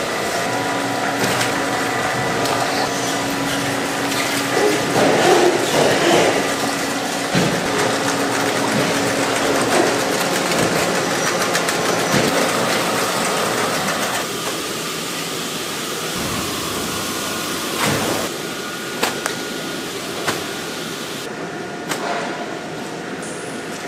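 Cabbage-processing line noise: conveyor and washing machinery running steadily with water splashing, a constant machine hum and a few sharp clanks. The noise shifts abruptly twice.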